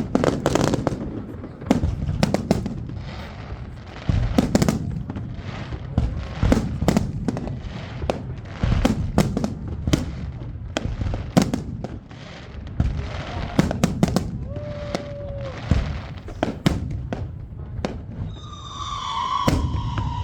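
New Year's Eve fireworks: a dense, irregular run of rocket and firecracker bangs and crackling, some louder than others, with a high whistle near the end.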